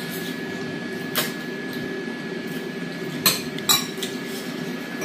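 Forks and chopsticks clinking against ceramic bowls: one sharp clink about a second in and two in quick succession past the three-second mark, over a steady background hum.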